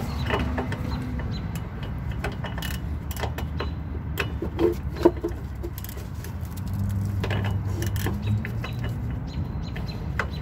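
Irregular metallic clicks and clinks of a 9/16 wrench working the upper bolt of a rear shock absorber as it is tightened down, over a steady low hum.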